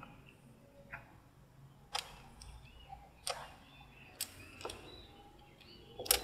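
Backgammon checkers clicking down on the board as they are moved, about six sharp, separate clicks at uneven intervals, the loudest near the end.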